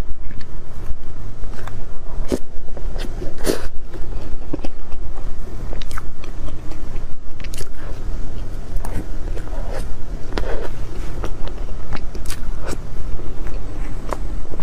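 Close-up eating sounds: irregular bites and chewing with scattered crisp clicks, over a steady low rumble.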